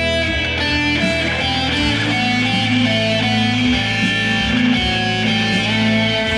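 Electric guitar played through amplifiers: a slow line of long, ringing held notes over a steady low drone.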